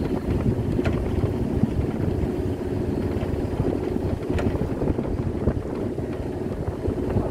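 Wind buffeting the phone's microphone: a steady, rough low rumble that keeps flickering in strength.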